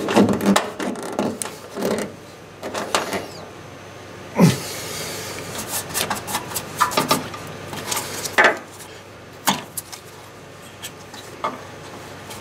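Hand tool and hands working a ground-wire fastener in an engine bay: scattered metal clicks and knocks with bursts of rubbing and scraping. The loudest knock comes about four and a half seconds in.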